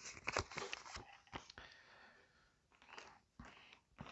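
Faint crackling rustle of a glossy paper leaflet being folded up by hand, thinning out after about a second and a half, with a few soft rustles near the end.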